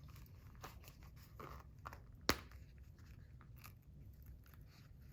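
Quiet handling of a monogram canvas wallet: small rustles and clicks, with one sharp click a little over two seconds in.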